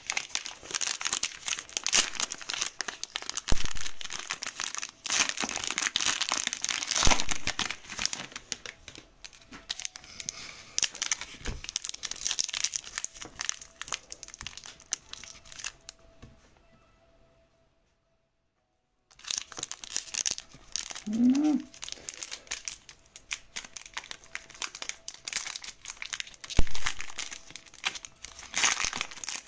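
Plastic card sleeves and a foil trading-card pack crinkling and rustling as cards are slid into sleeves and handled, with scattered sharp clicks. The sound drops out for about two seconds midway.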